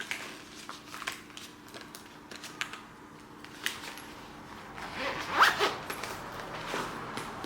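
Small handling noises: scattered light clicks, then a short zip-like rasp about five seconds in.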